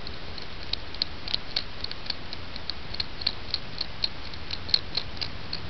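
Light, quick ticking, about four ticks a second and fairly even, over a low steady hum.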